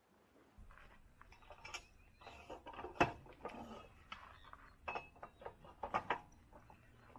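Irregular clicks, knocks and rustling of gear being handled by hand, with one sharp knock about three seconds in and a cluster of clicks around five to six seconds.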